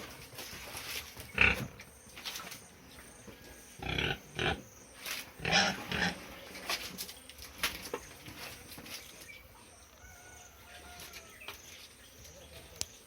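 Pigs in a stall making short, loud grunting calls, several of them in a row, then quieter near the end.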